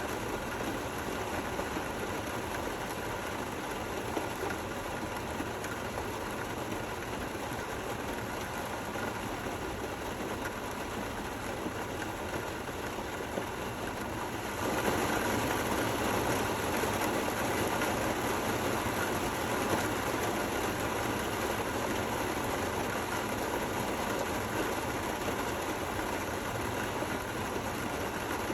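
Steady rain falling, an even hiss of many drops with a low rumble underneath, turning a little louder about halfway through.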